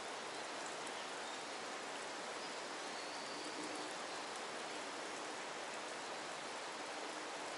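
Steady, even hiss of falling water.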